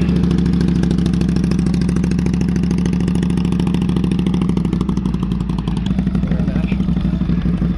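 An engine running steadily, with a strong low hum and a fast, even firing beat.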